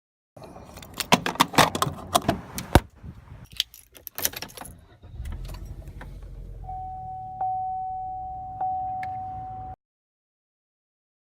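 Keys jangling and clicking for a few seconds, as in getting into a car, then a low car rumble with a steady electronic chime tone that sounds again twice at about one-second intervals, typical of a car's warning chime; it all cuts off suddenly.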